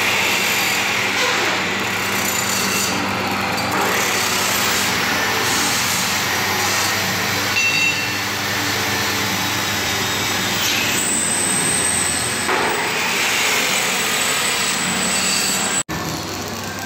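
Handheld electric grinder working over a sheet-steel panel, with arc welding going on alongside: a steady, harsh grinding noise. It drops out briefly near the end.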